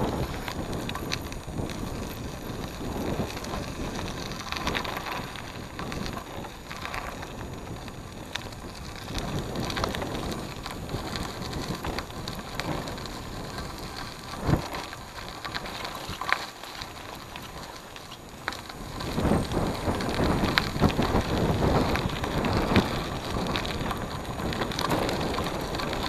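Cross bike tyres rolling over a gravel track: a steady crunching hiss with scattered small pops of stones. It grows louder and rougher about three-quarters of the way through.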